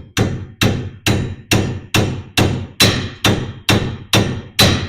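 Hammer striking steel at a steady pace of about two blows a second, each blow with a short metallic ring, driving the kingpin locator pin into a hot rod's drop front axle.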